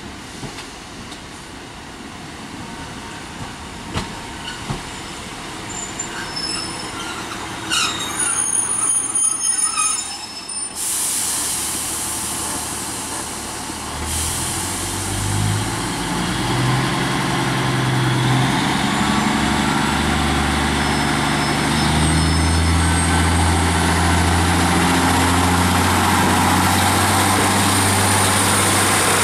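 GWR Class 153 diesel multiple unit running into the platform with a high brake squeal, then a hiss of air. Its diesel engines then open up and the engine note climbs in steps, growing louder as the train pulls away.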